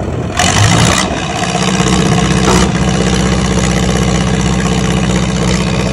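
Engine of a truck-mounted borehole drilling rig running steadily, with a short burst of hiss about half a second in.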